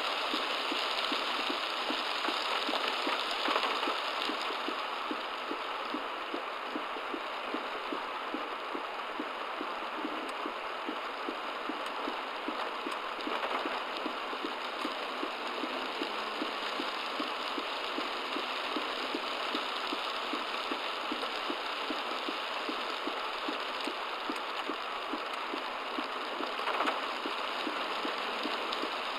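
Heavy rain beating on a car, picked up by a dashcam inside it: a steady dense rush with a fast, even pulsing running through it.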